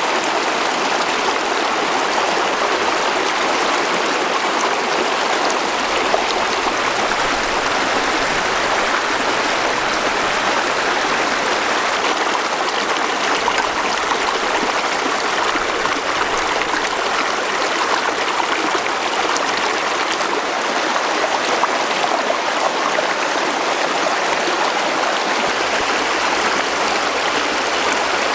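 Steady rush of running water, even and unbroken, with faint ticks here and there.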